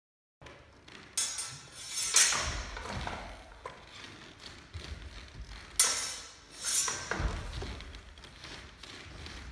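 Sword-and-buckler sparring: several sharp clashes of blades and bucklers, the loudest about two and six seconds in, with bare feet thudding on a wooden floor between them.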